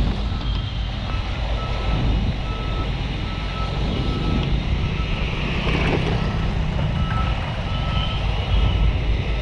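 A vehicle's reversing alarm beeping steadily, about two beeps a second, over the low rumble of engines and traffic.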